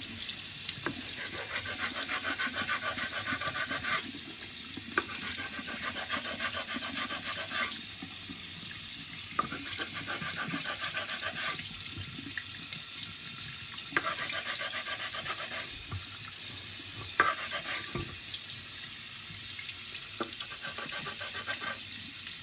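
Tap water running into a sink while one whetstone is scraped quickly back and forth against the edge of another wet stone, grinding off chips to bevel the edge. The scraping comes in spells of a few seconds with short pauses, with a few sharp clacks of stone on stone.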